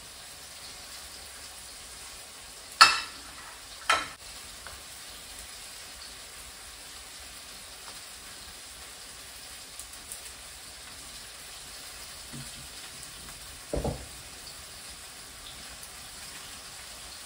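Steady sizzle of a batch of cornstarch-coated chicken frying in a pan, with two sharp clacks about three and four seconds in and a dull knock near the end.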